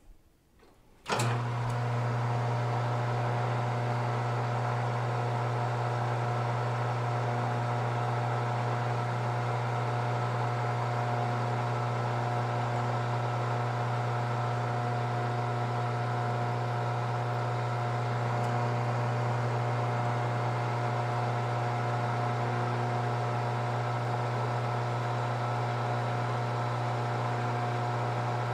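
Benchtop metal lathe switched on about a second in, its motor and spindle then running at a steady speed with a constant hum. The chuck spins a Delrin plastic part while a drill bit held in the toolpost bores into it.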